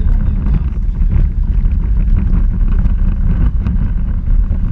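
Steady low rumble and rattle of a small electric Power Racing Series car heard through its own onboard camera as it drives over the pavement, with scattered clicks from the shaking chassis and wind on the microphone.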